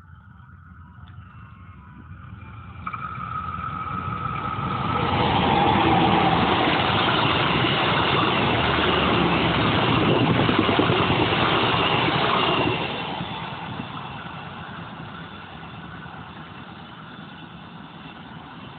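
A CC 204 diesel-electric locomotive hauling a passenger train passes close by. The sound builds over the first few seconds, stays loud and steady for about seven seconds, then tails off as the train rolls away.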